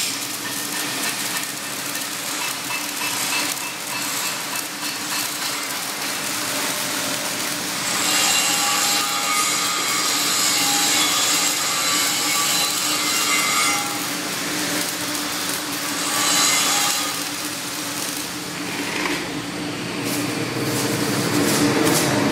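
Flux-cored arc welding on carbon steel plate in the vertical (3G) position: the steady crackle of the arc.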